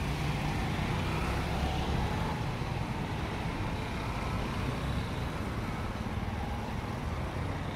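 Street traffic: motorcycles and cars passing, a steady rumble of engines and road noise.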